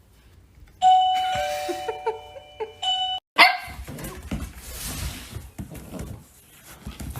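A two-note doorbell chime rings about a second in and dies away, with short dog yips under it. After a sudden cut, a dog barks amid other noisy sound.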